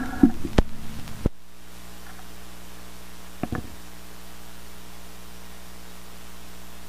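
Turntable stylus ticking with a few sharp clicks in the record's run-out groove. About a second in, the noise drops suddenly as the stylus lifts off, leaving a steady mains hum and hiss from the recording chain. A small click follows midway as the tonearm swings back to its rest.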